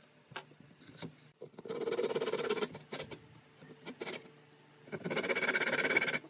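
Large hand saw cutting through a softwood board in two spells of rapid rasping strokes, with light clicks and knocks before and between them.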